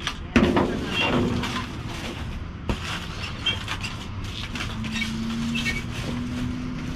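Plastic bags, cardboard and packaging rustling and scraping as a grabber pole digs through trash in a metal dumpster, with a couple of sharp knocks. A low steady hum joins in the second half.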